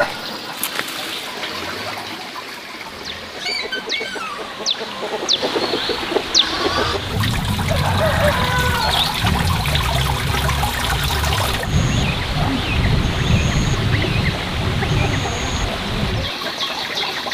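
Outdoor ambience of birds chirping over a steady trickle of running water. From about seven seconds in, a low rumble joins for roughly nine seconds.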